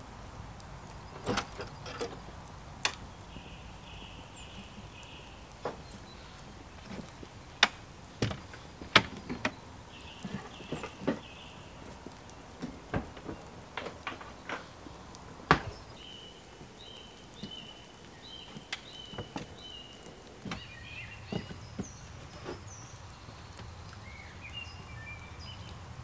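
Irregular wooden knocks and clatter as a wooden folding chair is handled, unfolded and set down on a caravan's small wooden porch, the loudest knocks about halfway through. Small birds chirp in short repeated phrases several times, most in the second half.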